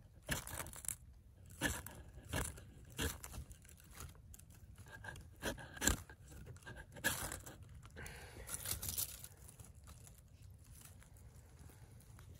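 Ferro rod struck with the spine of a Mora Eldris knife: about ten short scraping strokes through the first seven seconds, throwing sparks onto birchbark tinder until it catches. A longer, softer scrape follows about eight seconds in.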